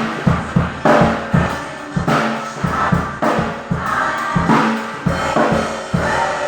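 Acoustic drum kit played in a steady groove, with kick and snare strikes two to three times a second, over music with singing voices.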